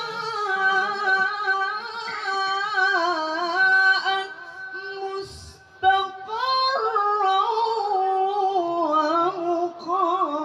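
A male qari reciting the Quran in the melodic tilawah style through a microphone and loudspeakers, holding long, high, ornamented notes that waver and step in pitch. A brief pause for breath comes about five and a half seconds in, then the melody resumes and steps lower near the end.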